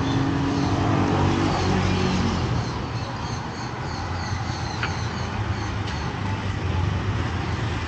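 Busy street-market din: a steady low rumble of traffic, with a run of quick high chirps, about three or four a second, that stops about six seconds in.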